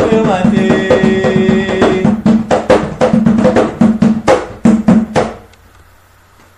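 Closing bars of an Umbanda ponto: drumming under a held tone for about two seconds, then a run of loud drum strokes that stops a little past five seconds in, leaving only faint hiss.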